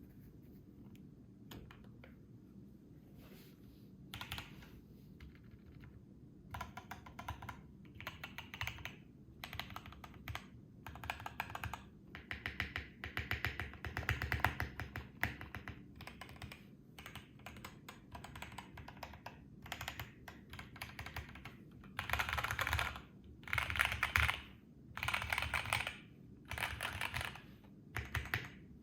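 Typing on a modded BM65 mechanical keyboard with stock Gateron CJ linear switches, PBT keycaps and a foam-filled case. A few scattered keystrokes at first, then fast typing in bursts from about six seconds in, with the loudest runs near the end.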